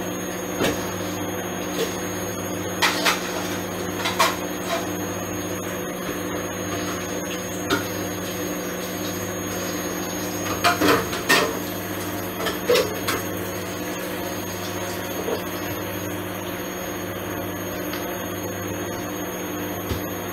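Candy Grand'O Vita front-loading washing machine running steadily with a blazer in the drum: a constant motor hum with a low throb about once a second, and occasional light clicks and knocks, a cluster of them about ten seconds in.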